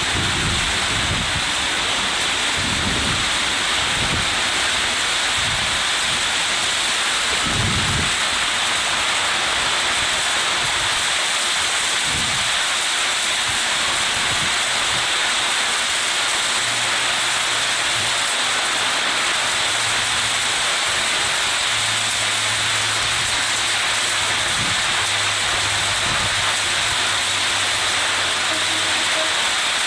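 Heavy monsoon rain pouring steadily. From about halfway, the low, steady hum of an approaching ALCO WDM-3A diesel locomotive's engine sounds faintly beneath the rain.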